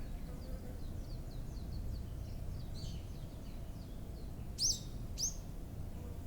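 Songbirds chirping outdoors: a run of faint quick chirps, then two loud sharp calls about half a second apart, over a steady low rumble of background noise.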